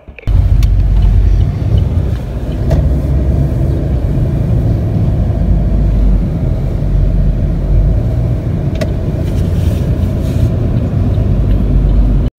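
Street traffic: cars driving past close by, a loud, steady, low rumble of engines and tyres.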